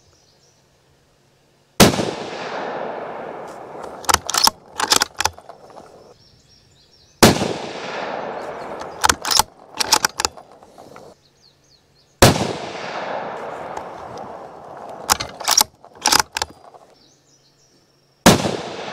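Four rifle shots from a Ruger American bolt-action rifle in 7.62x39, about five seconds apart, each followed by a long echoing tail. After each of the first three comes a quick run of metallic clicks as the bolt is worked to eject the case and chamber the next round.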